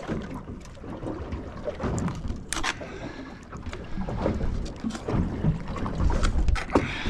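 Water slapping the hull of a small boat in the wind, with the irregular knocks and scrapes of a knife cutting fresh squid on the bait board.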